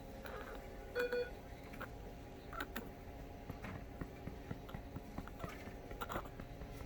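One short beep about a second in, over faint scattered clicks and rustles.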